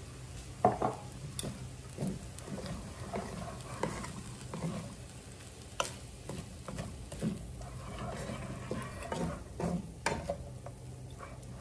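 Wooden spatula stirring and turning fried rice in a nonstick frying pan, with irregular soft scrapes and taps against the pan.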